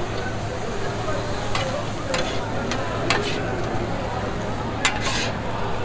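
Steel spatulas scraping and clacking on a Pit Boss flat-top griddle as shaved ribeye and melting white American cheese are chopped and mixed, with a few sharp clacks over a steady sizzle of food and a little added water steaming on the hot steel.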